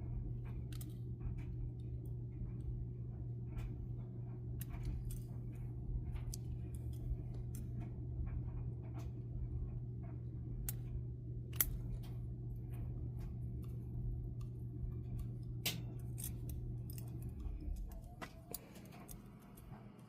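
Small metal parts and tools clicking and tapping as an HO-scale model locomotive is taken apart by hand, over a steady low hum that stops near the end.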